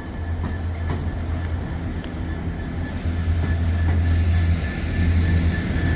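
DB Schenker Class 66 diesel freight locomotive coming through, its EMD two-stroke V12 diesel engine a steady low drone growing louder as it approaches.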